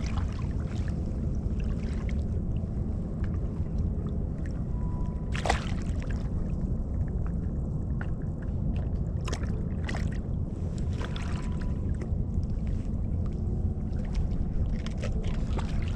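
Steady low rumble of wind and shallow bay water around a wading angler, with a few short, sharp sounds scattered through it.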